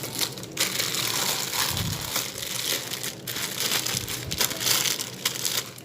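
Packaging being crinkled and rustled as it is handled, an uneven scrunching noise that comes and goes in waves.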